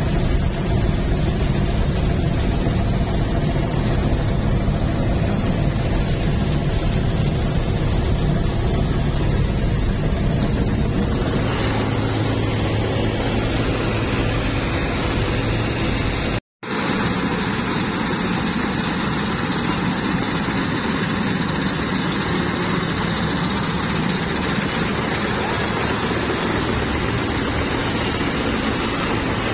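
Combine harvester running under load while cutting and threshing paddy: a steady, loud drone of engine and threshing machinery. It drops out for an instant about sixteen seconds in, then carries on.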